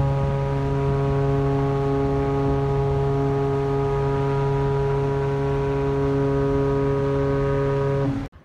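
A ship's horn sounding one long, steady blast at a single pitch, cutting off sharply near the end.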